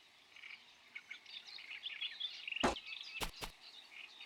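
Faint birdsong chirping in the background, broken about two and a half seconds in by a sharp knock and, a moment later, two quick clicks.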